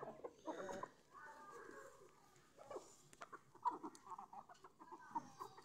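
Aseel hens clucking quietly in short, scattered calls while they peck at food on the ground.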